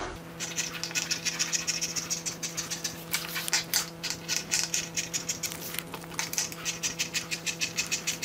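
Scissors cutting through a sheet of leather: a rapid, regular run of crisp snips, about four a second, over a steady low hum.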